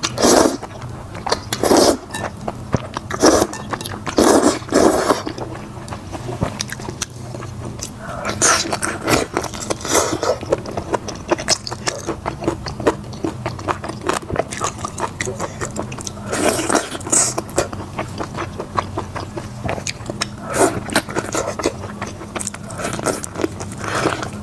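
Close-miked eating sounds of saucy noodles and braised chicken. Several loud slurps of wide flat noodles come about a second and a half apart, then wet chewing and lip smacking, full of small clicks, with a few more loud slurps or bites later on.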